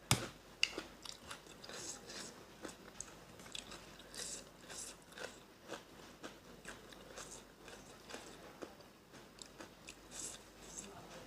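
A person biting into and chewing crunchy food: a run of short, crisp crunches, the sharpest just after the start.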